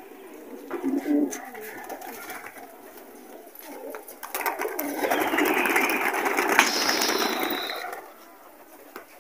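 Flock of domestic pigeons cooing, then, about four seconds in, taking off together with a loud clatter of wingbeats that lasts about four seconds as they are driven up into flight.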